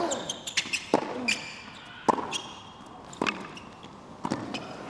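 Tennis rally on a hard court: rackets strike the ball hard about once a second, with ball bounces and short high squeaks in between.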